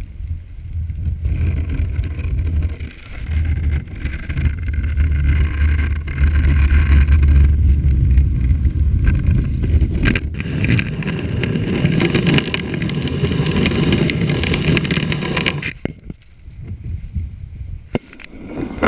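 Dog sled gliding through deep powder snow: a continuous scraping hiss of runners and sled bed against snow over a low rumble, dropping away suddenly near the end.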